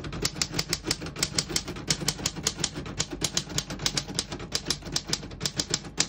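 1941 Corona Comet De Luxe manual portable typewriter being typed on steadily, its type bars striking the paper in a quick, irregular clatter of about seven keystrokes a second.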